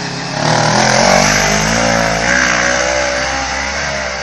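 Homemade all-terrain vehicle's engine revving hard under load while climbing a steep bank. It surges about half a second in and then slowly eases off.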